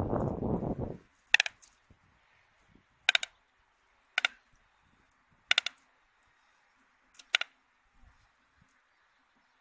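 White stork bill-clattering, a loud rapid wooden rattle that stops about a second in. It is followed by six short, sharp chirp-like clicks spaced a second or so apart, the last two close together.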